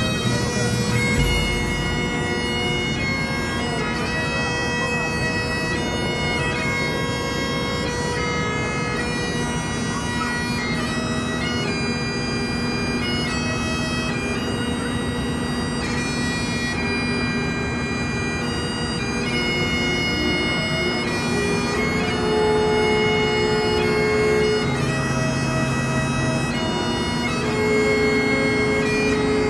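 Background bagpipe music: a pipe tune of held notes over a steady drone.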